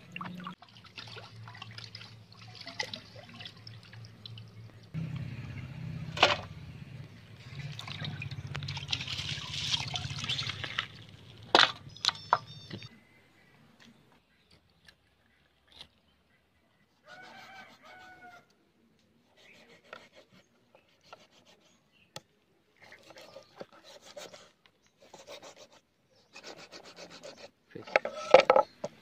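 Hands swishing and rubbing raw chicken pieces in a steel bowl of water, with splashing, until it stops suddenly about halfway. After that come scattered soft sounds and then short repeated strokes of a knife scoring the chicken on a wooden board.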